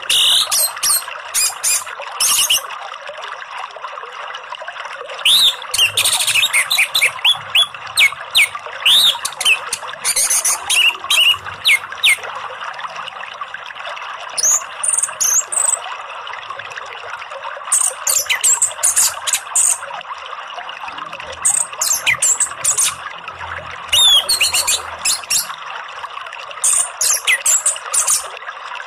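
Orange-headed thrush singing in short bursts every few seconds: rapid high notes and quick downward whistles, over a steady rush of flowing water.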